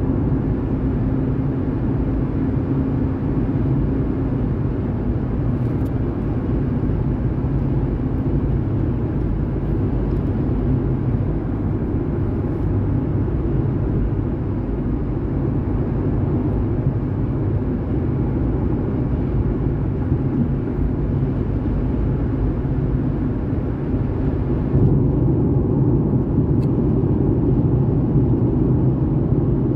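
Steady road and engine noise inside a moving car's cabin, mostly a low rumble. About twenty-five seconds in, the sound changes: less hiss and a stronger low rumble.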